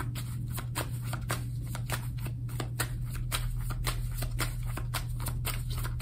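Deck of oracle cards being shuffled by hand, a run of short card clicks and slaps at about three a second, over a steady low hum.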